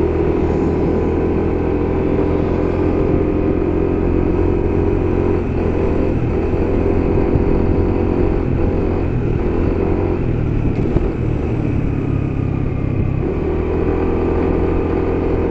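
A vehicle engine running steadily while driving along a road. Its note shifts down and back up a few times as the speed changes.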